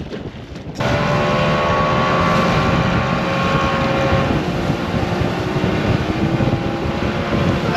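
Outboard motor driving a fishing boat at speed, with wind and water rushing past. It starts suddenly, loud and steady, about a second in, with a held engine note that rises slowly in the second half.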